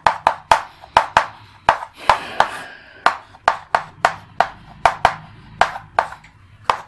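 Chalk writing on a chalkboard: a quick series of sharp taps, about three a second, as each stroke strikes the board, with a short scratching scrape about two seconds in.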